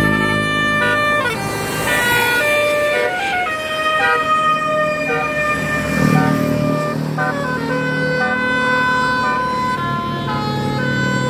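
Multi-tone 'telolet' bus air horn playing a melody of held notes that change pitch every half second or so, over the bus's running engine.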